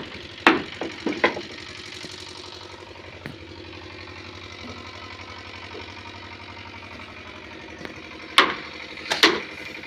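An engine running steadily, with a few sharp knocks about a second in and again near the end.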